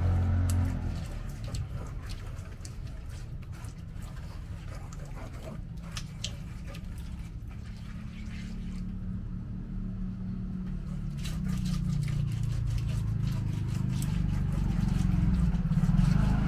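Stone pestle grinding a thick sauce paste in a large stone mortar: a low rumbling scrape with scattered gritty clicks, growing louder near the end.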